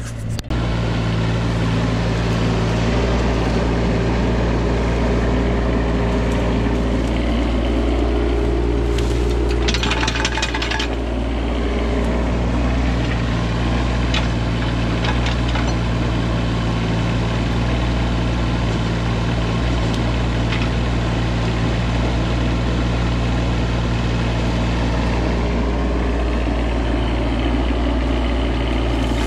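Bobcat E20 mini excavator's diesel engine running steadily while it digs out roots and brush. About ten seconds in there is a brief burst of crackling, and a few sharp clicks follow a few seconds later.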